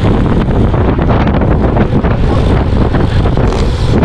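Wind buffeting a bike-mounted camera's microphone while riding a road bike at racing speed, a loud, steady rumbling rush.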